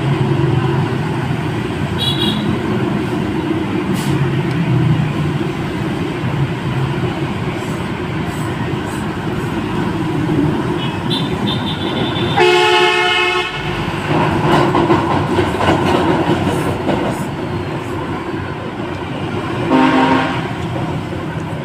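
Steady traffic rumble, with a horn sounding for about a second midway and again briefly near the end.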